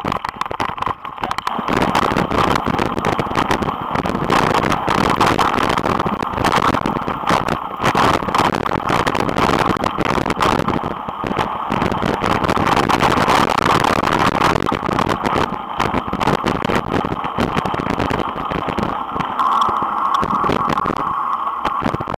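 Mountain bike riding on a gravel track: a steady rattling, crunching rush of tyres on loose gravel and the bike shaking, with wind on the camera microphone. The sound is a little quieter for the first second or two.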